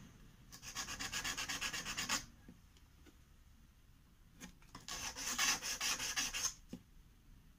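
A hard golden shower tree (Cassia fistula) seed rubbed back and forth on 220-grit emery paper in two spells of rapid, even scratchy strokes, with a short pause between. It is being scarified: the thick seed coat is worn through so the seed can take up water and germinate.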